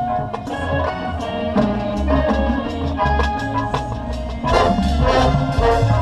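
Drum and bugle corps playing a field show: brass holding chords over drumline strokes and mallet percussion, swelling louder about four and a half seconds in.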